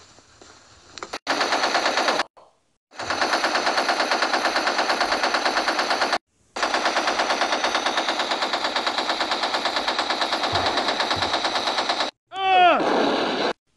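Machine-gun fire sound effect: three long bursts of rapid automatic fire at about ten rounds a second, separated by short breaks. Near the end comes a brief loud sound that drops steeply in pitch.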